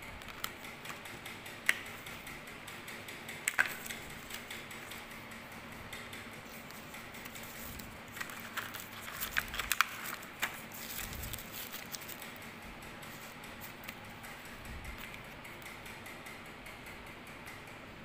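A small cardboard box and its packaging handled by hand: scattered clicks, taps and rustles, with a busier run of clicks about eight to ten seconds in.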